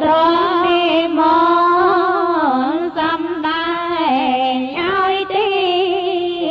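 A single voice chanting a slow melodic line of Buddhist chant, holding long notes with wavering ornaments and pausing briefly for breath twice.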